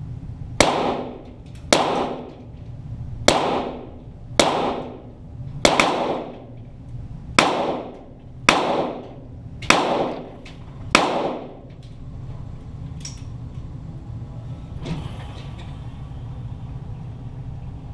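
Nine shots from a .22 Walther GSP target pistol, heard from downrange near the targets, fired at a steady pace of about one shot every second or so, each with a short echoing tail.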